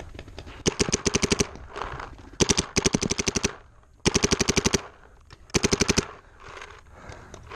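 Paintball marker firing rapid strings of shots, about ten a second, in four bursts with short pauses between them.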